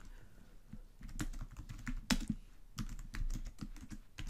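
Typing on a computer keyboard: quiet for about a second, then a quick run of irregular key clicks as a command is typed.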